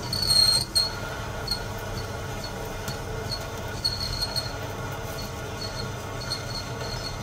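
Proxxon mini lathe running while a parting tool cuts into a spinning 304 stainless steel bar. A steady motor hum runs under a high-pitched squeal from the cut, which is loudest about half a second in and then comes back in short chirps.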